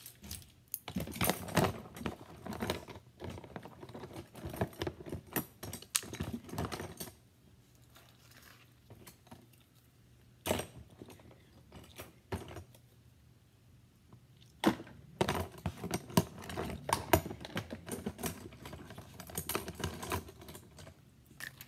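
Rapid clicking and clattering of paintbrushes being handled and dropped into a plastic storage bin. It comes in two busy spells with a sparser stretch of odd clicks between.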